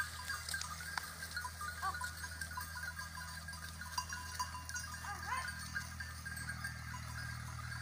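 Herd of goats moving past: small bells jingling and short goat bleats, one about two seconds in and another about five seconds in.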